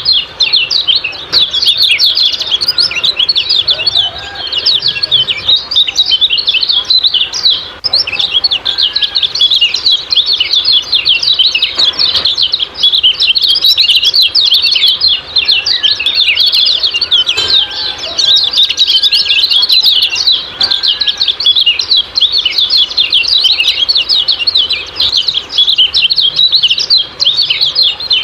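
Kecial kuning, a small white-eye, giving a rapid, unbroken 'ciak-ciak' chatter of high chirps, a few fainter lower notes underneath. It is a masteran lure recording, meant to stir caged kecial into song.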